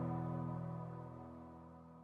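Slow ambient background music of held chords, fading out steadily.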